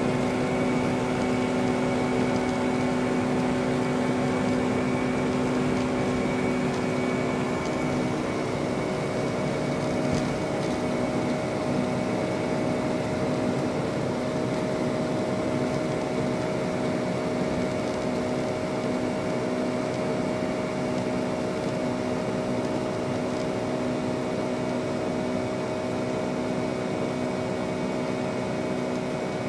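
Boeing 757 cabin noise during takeoff and initial climb: the turbofan engines and the airflow make a steady rushing noise with several held tones, easing off slightly toward the end.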